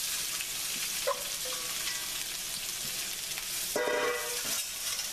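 Sliced bell peppers and onions sizzling steadily in hot olive oil in a stainless steel skillet, just added to the pan. Tongs stir them, with a short scrape about a second in and a louder one near the end.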